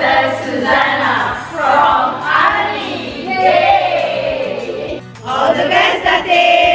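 A group of women's voices singing together in unison, with a long held note near the end.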